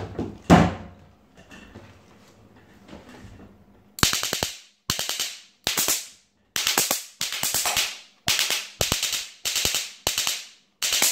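Electric fly swatter run on 12 V instead of its 3 V batteries, arcing across its grid in about ten loud crackling, snapping bursts of roughly half a second each, starting about four seconds in. The bursts show the high-voltage circuit is overdriven. A single thump comes about half a second in.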